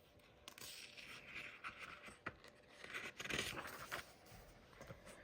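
Faint rustling and scraping of paper as a page of a picture book is turned, with a few small clicks, strongest about three seconds in.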